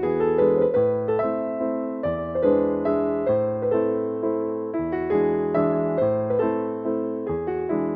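Gentle piano music: a slow melody of single notes struck a few times a second over sustained bass notes that change every second or two.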